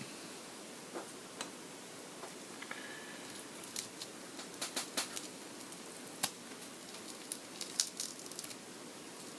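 Scattered small clicks and crackles of repair tools prying at a cracked iPad display, working it loose from its adhesive. The clicks come irregularly, thickest in the middle of the stretch.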